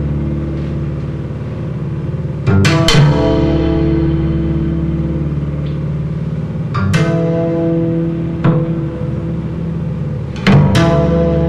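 Bass guitar music: ringing chords held between sharp plucked attacks, with new notes struck about two and a half, seven, eight and a half and ten and a half seconds in.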